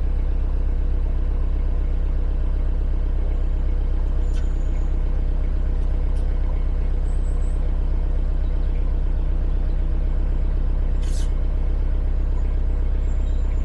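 Narrowboat's inboard diesel engine running steadily at cruising speed, a constant low hum.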